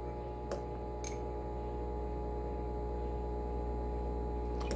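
Steady electrical hum of a microwave oven running, with two faint light clicks about half a second and a second in.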